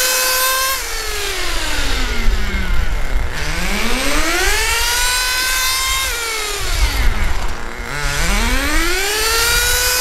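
Vertex .18 two-stroke nitro engine in a 1/10 scale RC truck, revved to full throttle and let off again and again during its break-in: the pitch holds at a high whine, falls away, climbs again about three and a half seconds in, falls, and climbs once more near the end.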